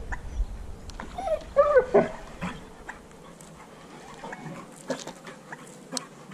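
A dog whining briefly about a second in: a short whimper that rises and falls in pitch. A few faint clicks follow later.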